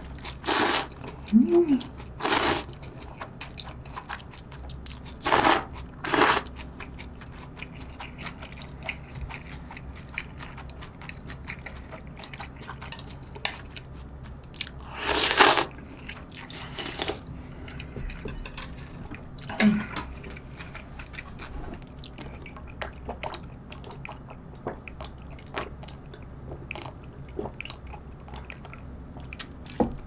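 Eating sounds of spicy cold jjamppong noodle soup: several short, loud slurps of noodles in the first seven seconds, a longer slurp of broth from the bowl about fifteen seconds in, then quiet chewing with small clicks.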